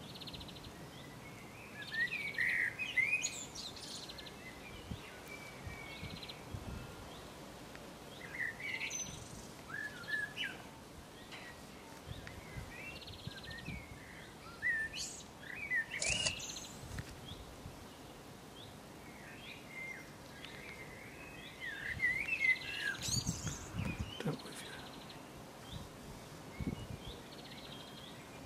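Garden birds chirping and singing in several short bursts of quick twittering phrases, with quieter outdoor background between them.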